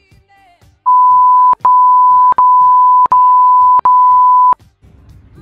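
Censor bleep: a steady, loud, high-pitched beep tone dubbed over a woman's words, in five stretches broken by four brief gaps, lasting about three and a half seconds.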